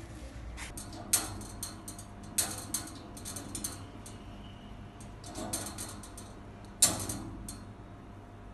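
Metal cage bars and the hanging wire toy rattling and clicking as a kitten moves against them: a string of irregular sharp metallic clicks and knocks, the loudest about a second in, about two and a half seconds in and near seven seconds.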